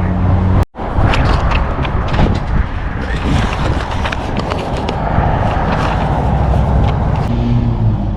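Rough rattling and clatter with many sharp knocks over a running engine, after a sudden break about a second in.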